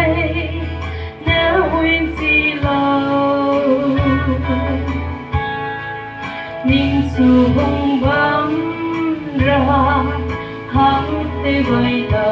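A woman singing a song into a microphone over the church's sound system, with instrumental accompaniment of sustained chords, guitar and a low bass note held for a second or two at a time.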